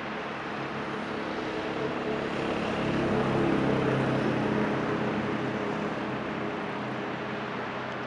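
A motor vehicle's engine passing by, swelling to its loudest about halfway through and then fading, over a steady rushing background.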